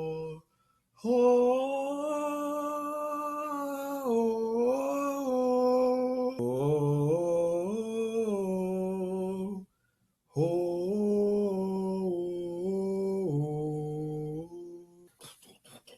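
A man's voice droning wordless, chant-like tones, each held long and stepping or sliding up and down in pitch, with two short breaks. The droning stops about a second and a half before the end, and a quick run of scratchy rubbing sounds follows.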